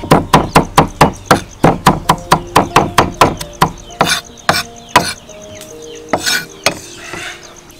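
Steel cleaver chopping shallots and garlic on a thick wooden chopping block: a quick run of knocks, about five a second, then slowing to a few single strikes, and a scrape of the blade across the board near the end.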